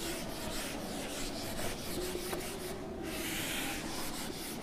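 Whiteboard eraser rubbing across a whiteboard in repeated wiping strokes.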